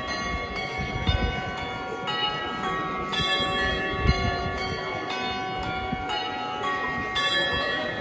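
A team of handbell ringers ringing a sequence of handbells, one clear note after another in quick succession, each bell ringing on as the next sounds, with a couple of low knocks in between.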